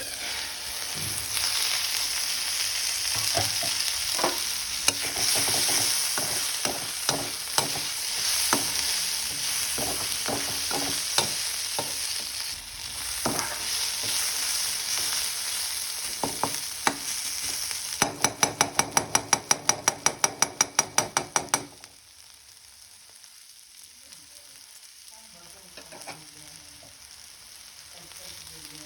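Vegetables sizzling in hot oil in a pan while being stirred, with a spatula knocking against the pan now and then. About two-thirds of the way through there is a rapid, even run of sharp clicks lasting a few seconds. After that the sizzle drops much quieter.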